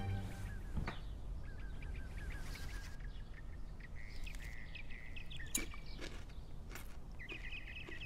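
Small birds chirping in runs of quick repeated notes and trills, with a few sharp clicks in between.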